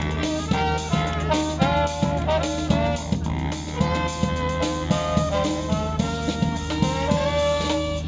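Live band playing jazzy music, brass carrying the melody in held notes over a steady drum-kit beat.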